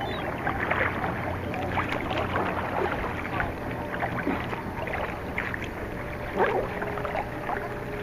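Harbour water lapping and splashing around a kayak, with many short, sharp splashes through it.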